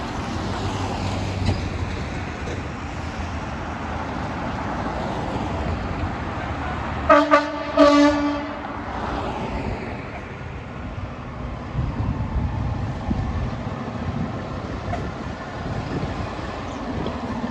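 Fire apparatus air horn blowing two short blasts and then a longer one about seven seconds in, over steady traffic and tyre hiss on a wet street.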